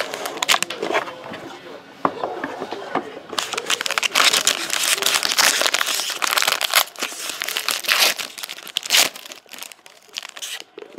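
Foil wrapper of a trading-card pack crinkling and tearing as it is handled and ripped open by hand. The crinkling is loudest from about three and a half to seven seconds in, and again a little later.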